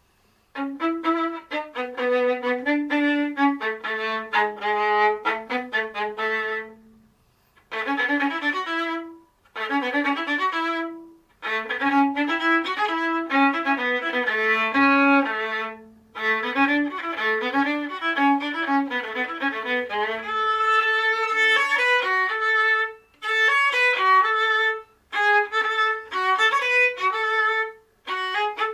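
Solo violin played with the bow: a melody of many separate notes in phrases a few seconds long, with short breaks between them.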